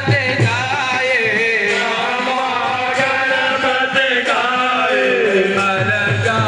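Devotional aarti singing, a melodic chant-like song with drum strokes at the start and again near the end.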